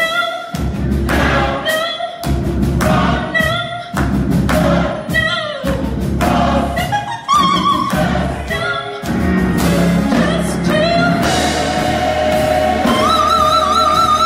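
Church choir singing a gospel song in phrases broken by short pauses, over a steady low accompaniment. About thirteen seconds in, a high held note with vibrato comes in.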